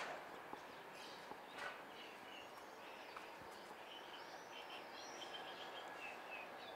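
Faint birds chirping over quiet outdoor background noise, with short high calls coming in quick runs from about two seconds in until near the end.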